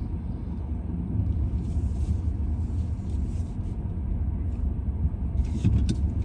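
Steady low rumble of a car's engine and tyres, heard from inside the cabin while driving, with a few light clicks near the end.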